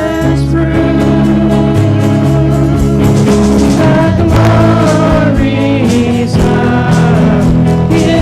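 Live church worship music: voices singing a Christmas song over a band's instrumental accompaniment.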